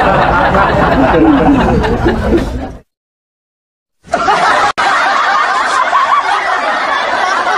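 Loud laughter mixed with crowd noise, breaking off into a second of dead silence a little under three seconds in, then starting again.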